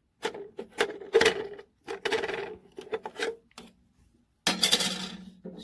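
Parts of a Rhino bulk candy machine's dispensing head being pulled out and handled: irregular scraping and clattering. It stops briefly about four seconds in, then picks up again more densely near the end.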